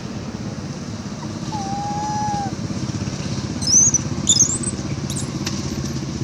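A young macaque gives two short, high-pitched squeals about four seconds in. A steady low, engine-like rumble runs underneath, and a single short whistled note comes about two seconds in.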